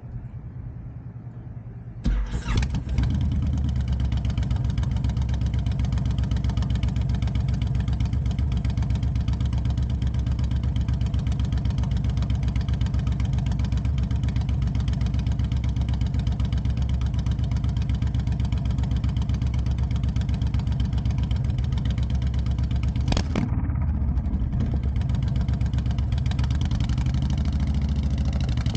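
Honda Fury's 1312 cc V-twin with a Cobra Speedster Swept exhaust starting about two seconds in and settling into a steady, deep idle. There is a single sharp click about 23 seconds in, and near the end the engine note starts to shift as the bike begins to move off.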